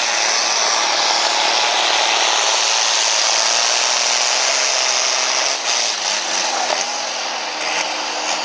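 John Deere altered farm tractor's diesel engine running at full throttle under heavy load as it drags a weight-transfer sled, a loud, harsh, steady noise. The sound wavers and eases off slightly in the last few seconds as the pull winds down.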